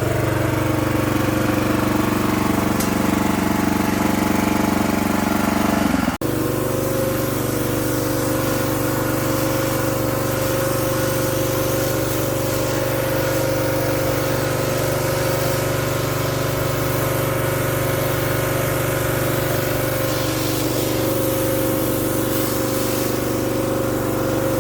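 A high-pressure washer's 6.5 HP single-cylinder petrol engine and 200-bar pump running steadily at working speed, with a brief break about six seconds in.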